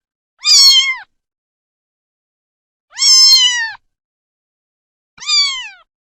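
Domestic cat meowing three times, each meow well under a second long, rising slightly and then falling off at the end, with dead silence between them.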